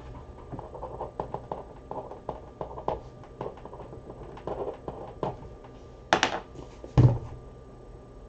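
Trading cards and their packaging being handled: light rustling and small taps, with a louder sharp rustle about six seconds in and a knock about a second later.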